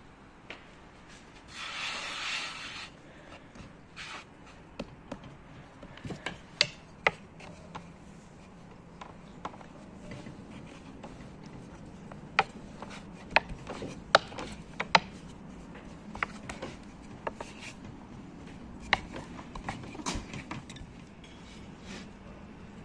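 Hands working bread dough on a floured wooden board: a short cloth rustle about two seconds in as the towel comes off, then scattered sharp taps and knocks of hands and dough against the wood.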